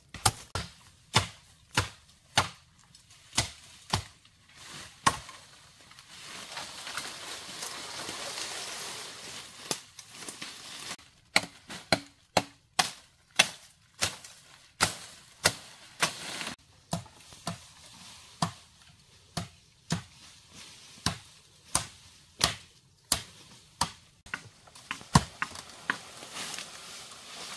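Repeated sharp blows on wood, about one every half second or so, with a few seconds' break about a quarter of the way in, filled by a steady hiss.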